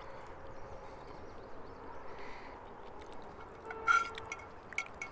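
Quiet outdoor background, then about four seconds in a few short metallic clinks and scrapes of a fork against a frying pan.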